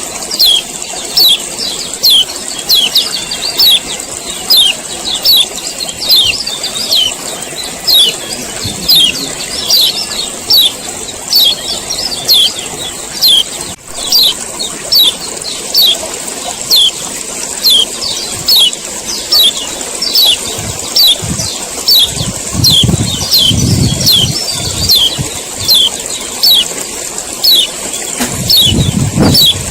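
Male kecial kuning, a white-eye, giving its rapid 'ciak ciak' call: a continuous stream of short, sharp chirps falling in pitch, several a second. A low rumble comes in near the end.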